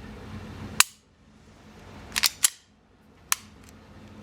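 Unloaded Canik striker-fired pistol being worked by hand to test its new lighter trigger plunger spring: sharp metallic clicks of the action. One click comes about a second in, a quick run of three around two seconds in, and another a little after three seconds.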